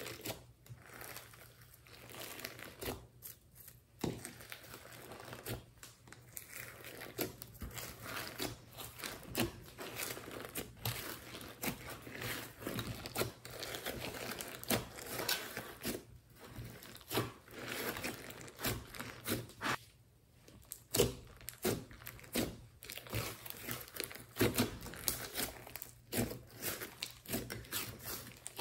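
Hands kneading, stretching and folding a large mass of slime with glitter and beads mixed in. It makes sticky squelching with dense, irregular crackles and pops.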